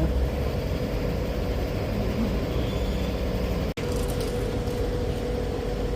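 Steady low rumble of background road traffic with a constant hum; the sound cuts out for an instant a little before four seconds in.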